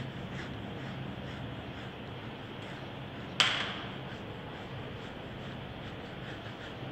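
Steady low background hum, with one sharp click about three and a half seconds in.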